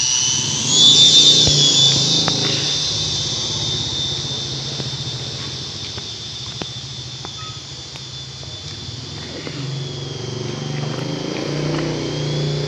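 Toy RC helicopter's small electric rotor motors running with a steady high whine over a low hum. The sound is loudest about a second in, eases off, and picks up again near the end.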